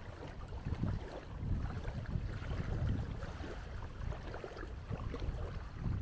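Wind buffeting the microphone in uneven low gusts, over small waves washing on the shore.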